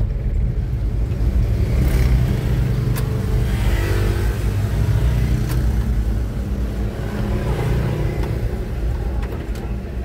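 Truck engine running and road noise heard from inside the cab while driving slowly, a steady low rumble with a couple of brief clicks.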